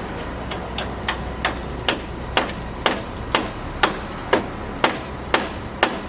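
Hammer blows in a steady rhythm, about two a second, starting about a second in.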